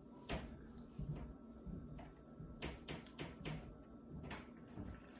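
Faint clicks and scrapes of a utensil against a baking dish as a macaroni pie is cut into squares. There is one near the start and a quick cluster of several around the middle.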